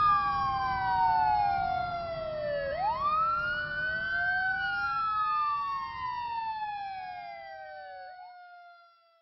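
Fire truck siren wailing, its pitch sliding slowly up and down over a low rumble, and fading out near the end.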